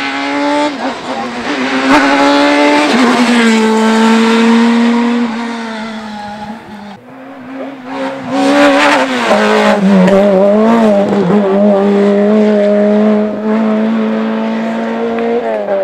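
Rally car engines at full throttle on a stage: the first car revs up through the gears with quick shifts as it comes past, then after a cut a second rally car approaches, passes close at its loudest and fades away.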